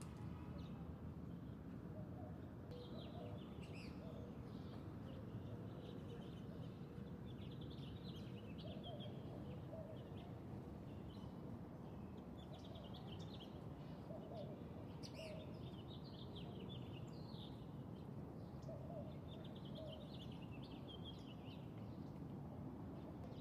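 Songbirds chirping and twittering in many short, quick calls, with a few fainter lower calls, over a steady low background hiss.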